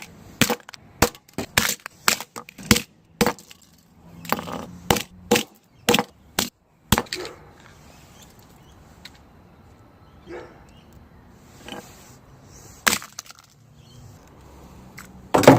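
Repeated hard blows as an object is smashed: sharp cracking impacts about two a second for the first seven seconds, then a few more spaced out, with the loudest one near the end.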